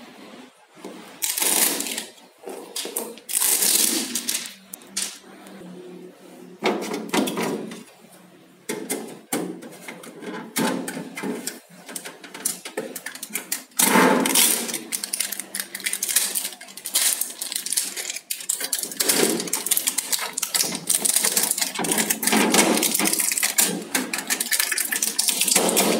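Blue shipping tape being peeled off a new refrigerator's door and plastic interior: irregular rasping, crackling pulls mixed with short clicks. The pulls come sparsely at first and get denser from about halfway through.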